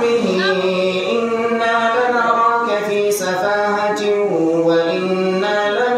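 A man chanting Quranic verses in melodic tajwid recitation, holding long notes that step from one pitch to the next.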